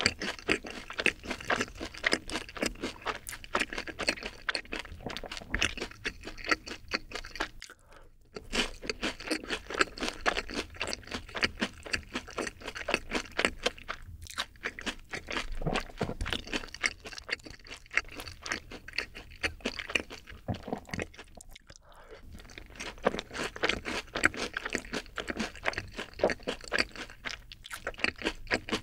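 Close-miked chewing of crispy sweet-sauced Korean fried chicken (yangnyeom chicken): a dense run of wet crunches, easing off briefly about 8 seconds in and again around 22 seconds.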